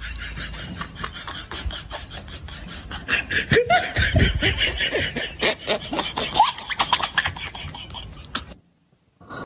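People laughing in quick rhythmic pulses, louder from about three and a half seconds in, then cutting off suddenly near the end.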